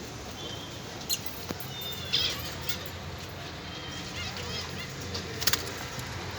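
Small birds giving short, scattered chirps, with a few sharp clicks, over a low steady background rumble.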